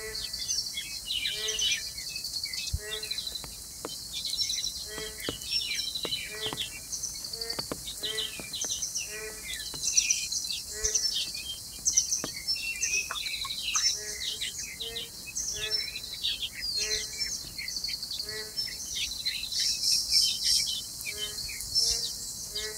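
Outdoor birds and insects calling together: a low call repeats steadily about every two-thirds of a second over many short, high chirps, with a few faint clicks.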